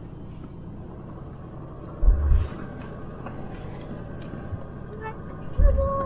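Jeep driving on an off-road trail: a steady low rumble of engine and ground, broken by two heavy low thumps, one about two seconds in and one near the end, with a short squeak-like tone just before the end.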